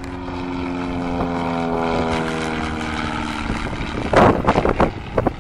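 Single-engine propeller light aircraft flying overhead, its engine a steady drone that falls slightly in pitch and fades about three and a half seconds in. Near the end come several loud, short bursts of noise.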